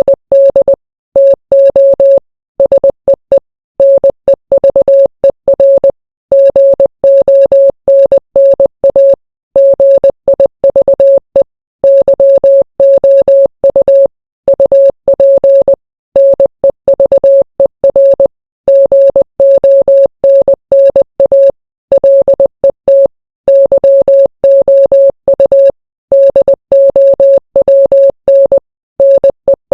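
Morse code sent as a single steady mid-pitched beep keyed on and off. The beeps come in runs of short and long tones (dits and dahs), separated by short gaps between letters and longer gaps between words.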